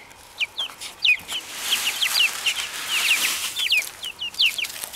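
Chicks peeping: a rapid run of short, high cheeps, several a second, with a soft hiss for a couple of seconds in the middle.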